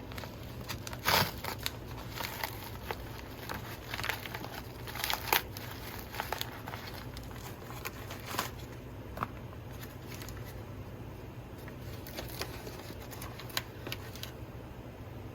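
Intermittent clicks, scrapes and rattles of hand tools and metal parts being worked on a Stihl MS 261 chainsaw while the anti-vibration spring is twisted off, with the sharpest clicks about a second in and about five seconds in. A steady low hum runs underneath.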